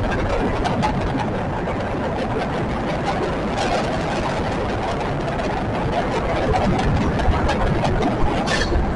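Wisconsin & Southern diesel freight locomotives running, a steady heavy engine sound with scattered clicks through it.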